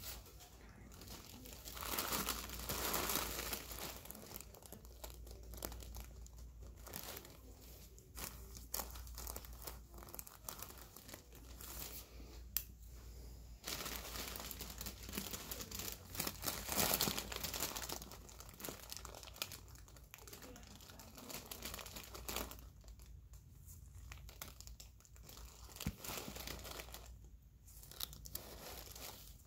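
Irregular crinkling and rustling of nitrile gloves and the paper drape as the stitches behind the ear are put in, louder for a stretch about two seconds in and again from about fourteen to seventeen seconds.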